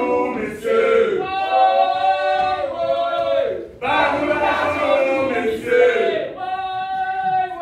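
Several voices singing together in long, drawn-out notes, in three phrases with short breaks between them.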